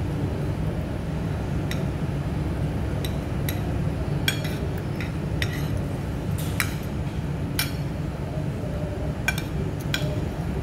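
Metal spoon clinking and scraping against a ceramic plate, about ten sharp clinks spread irregularly, over a steady low hum.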